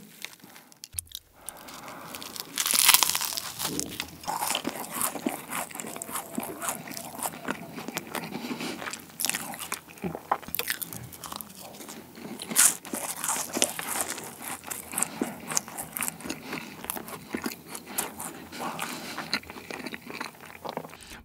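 Close-miked crunching of a flaky, cream-filled puff pastry as it is broken apart by hand and bitten into, the thin layers crackling and crumbling, then chewed. The loudest crunch comes about three seconds in.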